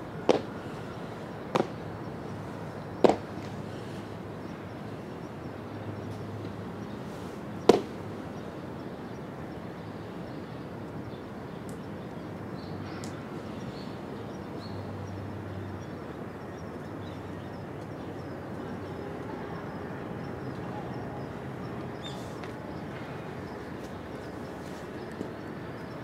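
Four sharp knocks or snaps, the first three about a second and a half apart and the last several seconds later, over a steady outdoor background hiss.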